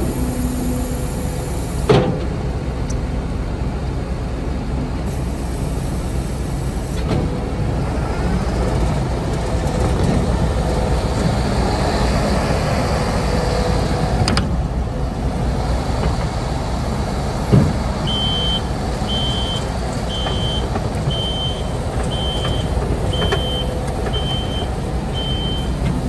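Kubota SVL95-2S compact track loader's four-cylinder turbo-diesel running under load as the machine tracks and turns on sand, with two sharp clanks, about 2 seconds and 17 seconds in. Near the end a reversing alarm beeps about once a second, eight times.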